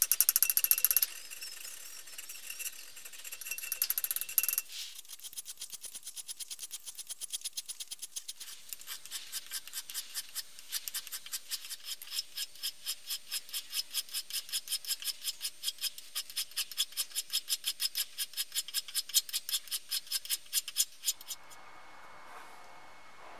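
Hand files scraping across the spring steel of a leaf-spring knife blank clamped in a vise: a few irregular strokes at first, then steady back-and-forth filing at about two to three strokes a second, stopping shortly before the end.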